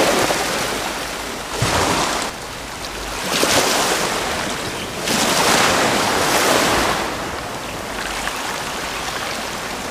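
Small waves washing in over a pebble shoreline, swelling in a few surges and then settling to a steadier wash near the end.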